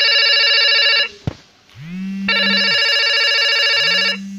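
An electronic ringing tone that repeats in rings of about two seconds. One ring stops about a second in, followed by a short click, and the next starts about two seconds in and stops near the end. Under each ring a low hum swells and fades.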